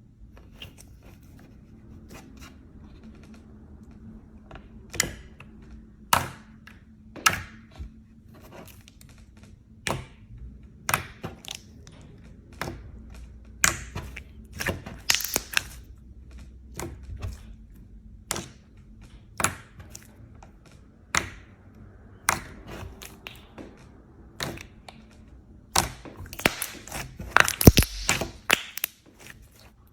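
Slime being pressed and poked by hand, giving irregular sharp clicks and pops, with a dense run of crackling about two seconds long near the end.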